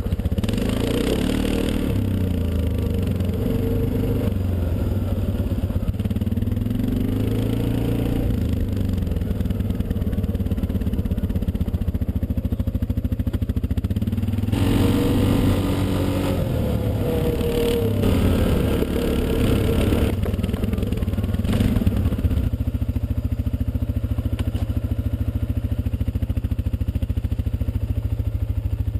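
ATV (quad) engine running while riding, its pitch rising and falling with the throttle several times, with some rattling of the machine.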